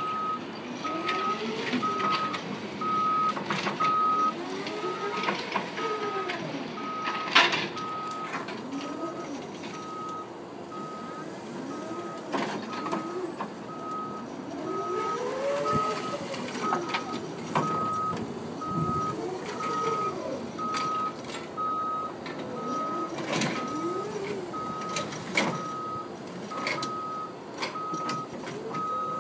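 Electric stand-up forklift manoeuvring: its warning beeper sounds steadily at about two beeps a second, over the drive motor's whine rising and falling in pitch as it speeds up and slows. A few sharp clunks come through.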